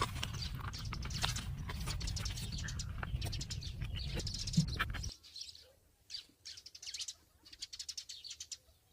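Small birds chirping rapidly and repeatedly, over a steady low rumble that cuts off suddenly about five seconds in, after which only the chirps remain.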